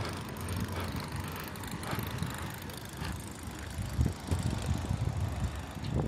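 Low, uneven rumble of an engine running steadily, over a steady outdoor noise.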